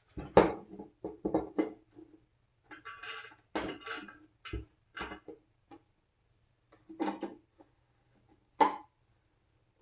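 A metal clamp and hand tools being handled, giving a string of irregular clinks, knocks and rattles, with sharper knocks near the start and late on.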